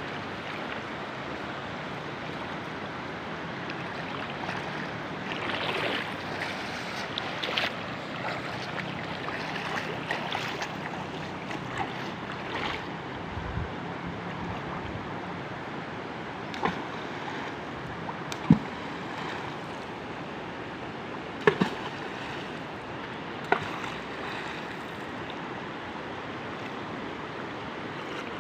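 Steady rushing water from the river, with a stretch of louder splashing about six to eight seconds in and several single sharp knocks later on.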